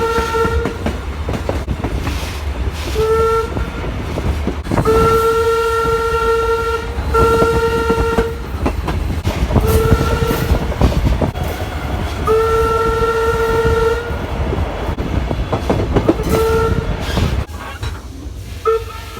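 Locomotive horn sounding about half a dozen long and short blasts over the low rumble and wheel clatter of a passing train. The rumble drops away near the end.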